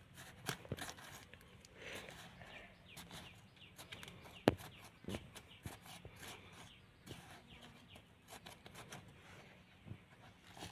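A thin digging stick scraping and prodding dry, crumbly soil while a gloved hand scoops the loose earth aside: faint, irregular scratches and crumbling clicks, with one sharper knock about four and a half seconds in.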